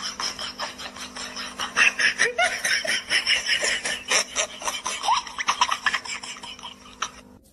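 Rubber balloons squeaking and rubbing against wooden benches as children bounce on them to burst them, in quick, dense scrapes, with a crowd laughing. The sound fades out near the end.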